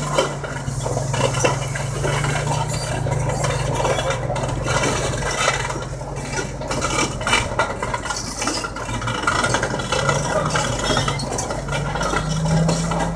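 Large Komatsu crawler dozer's diesel engine running under load as it pulls a tracked Cat MD6640 drill rig, with steady clanking and rattling of steel tracks and hitch. Near the end the engine note rises and strengthens as the dozer works harder, puffing black exhaust.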